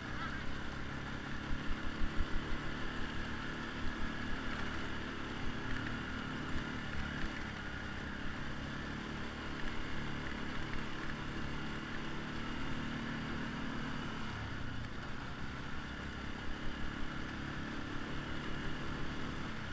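ATV engine running under way, its note dropping and climbing again a few times as the throttle changes, with a few low thumps about two seconds in.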